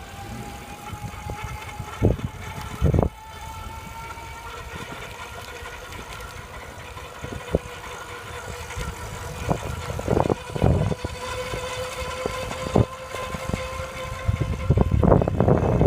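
Electric bike motor whining, its pitch rising slowly for the first several seconds as the bike speeds up, then holding steady. Occasional knocks and thumps come over it, thickest near the end.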